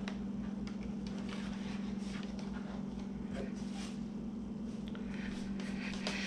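A steady low hum runs throughout, with faint scattered light clicks and rustles.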